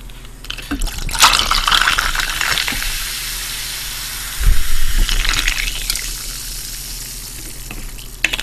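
Pepsi cola poured from a plastic bottle into a glass mug over ice, the liquid gushing in and the carbonation fizzing, with a louder gush about halfway through and the fizz slowly dying down toward the end.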